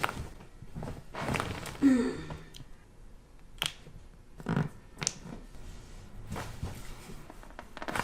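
Several short, sharp cracks and thuds of a chiropractic adjustment, the pops of joints being manipulated. A brief groan from the person being adjusted comes about two seconds in.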